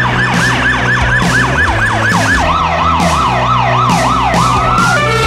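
Emergency vehicle siren on a rapid yelp, sweeping up and down several times a second. It drops to a lower-pitched yelp about halfway through and ends on a rising glide. Background music plays underneath.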